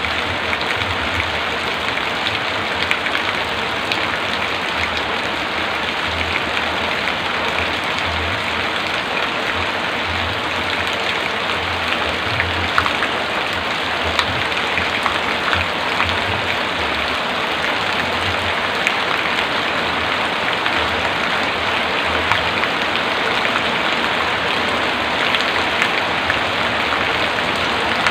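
Heavy rain falling steadily: a dense, even hiss with scattered sharper drop ticks, over a low, uneven rumble.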